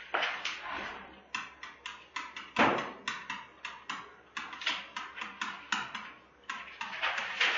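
Stylus tapping and scraping on a pen tablet during handwriting: a quick, irregular run of sharp clicks, several a second, with one louder knock a little before the middle.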